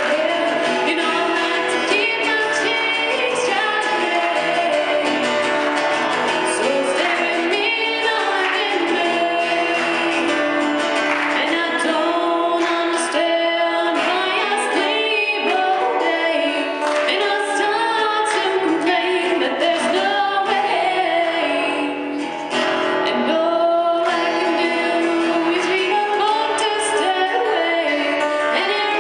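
A woman singing over an acoustic guitar accompaniment.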